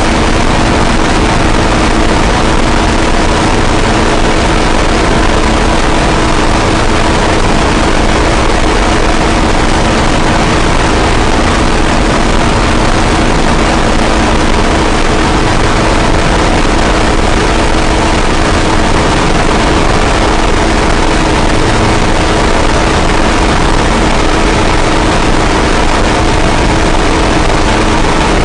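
Harsh noise wall: a dense, unchanging mass of distorted noise at constant loudness, with steady drone tones held underneath.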